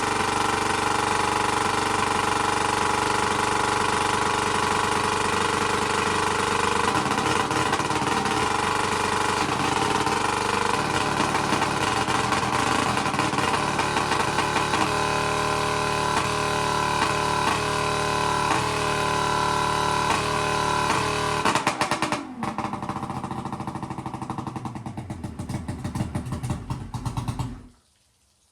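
Two-stroke outboard motor running on flush muffs, loud and idling very high. About 22 seconds in it drops to a lower, quieter note. Near the end it cuts off abruptly, killed by pulling the choke because the key will not turn it off.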